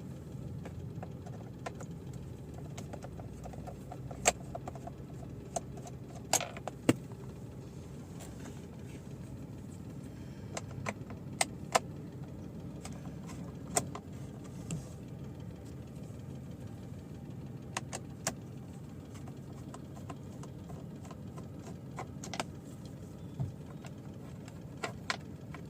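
Car engine idling with a steady low hum, under scattered sharp clicks and ticks of a screwdriver and screws being worked out of the plastic steering-column cover.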